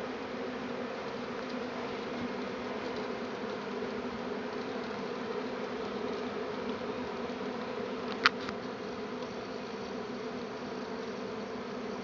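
A swarm of honeybees in flight: the steady drone of many wings together. One sharp tap about eight seconds in.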